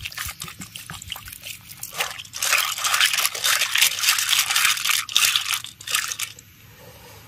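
Cold water poured over a batch of freshly boiled snails to cool them quickly: a few light clicks of shells, then about four seconds of splashing water.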